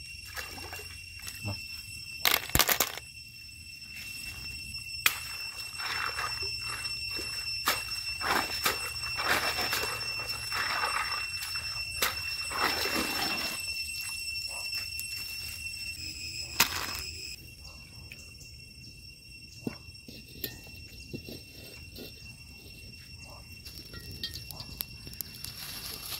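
Scattered clicks, knocks and rustling or scraping of hands working, loudest in the middle, over a steady high-pitched insect drone.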